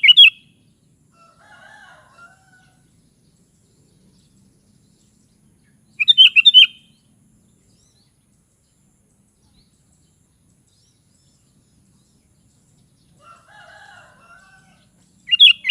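Sooty-headed bulbul (kutilang) singing: a short, bright, bubbling phrase three times, about six and nine seconds apart. Fainter, lower-pitched calls come between the phrases.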